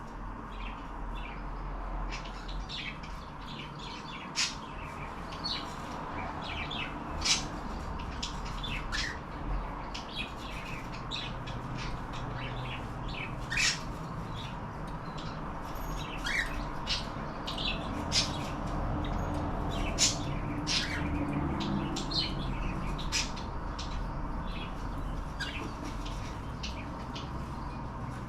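Two pet cockatiels chirping and squawking in short, sharp calls, scattered irregularly and a few louder than the rest, over a steady background hum.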